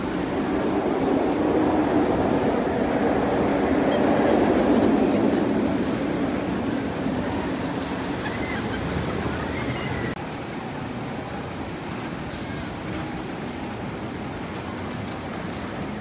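A rumble that swells over the first five seconds and fades, then a lower steady background noise after a sudden drop about ten seconds in.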